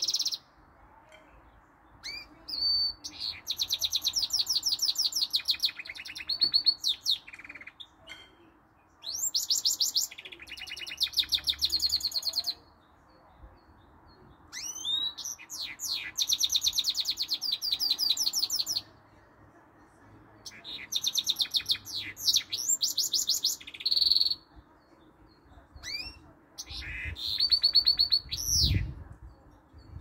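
Goldfinch × canary mule singing: five or six loud phrases of fast trills and rolls with short rising and falling notes, some of them canary-like, separated by brief pauses.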